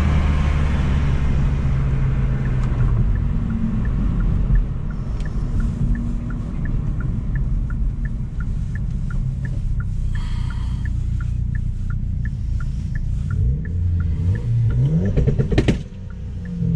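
Hyundai Veloster N's turbocharged 2.0-litre four-cylinder idling at about 900 rpm, heard from inside the cabin. A few seconds in, a turn signal starts clicking about three times a second. Near the end the engine briefly revs up.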